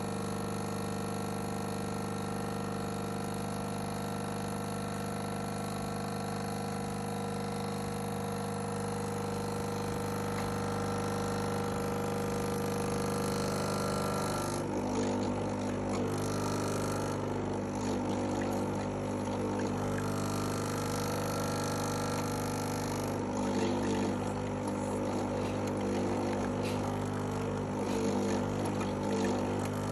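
A BlitzHome BH-CM1503 15-bar espresso machine's pump running with a steady buzzing hum, on a machine its owner says is not working properly. About halfway through, a rougher, irregular sputtering noise joins the hum and comes and goes.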